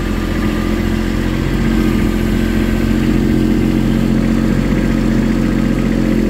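Kubota BX-series compact tractor's small three-cylinder diesel engine running steadily, heard from the operator's seat.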